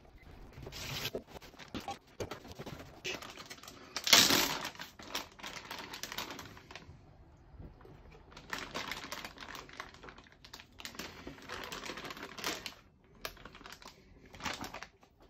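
Plastic zip-top freezer bag crinkling and rustling as it is handled by wet hands and lifted out of a bowl of water, in irregular stretches with the loudest crackle about four seconds in.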